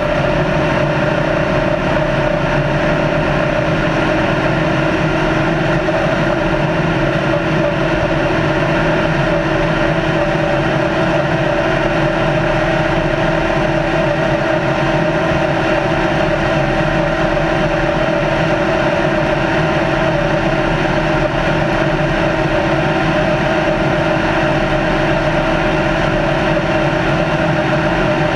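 Race car's engine running steadily at high cruising speed, with no gear changes, over steady road and wind noise.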